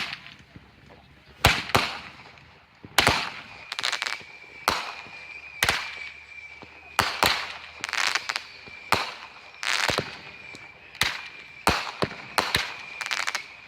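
Consumer fireworks going off: a run of sharp bangs at irregular intervals, one or two a second, with a steady high whistling tone beneath them from about three seconds in.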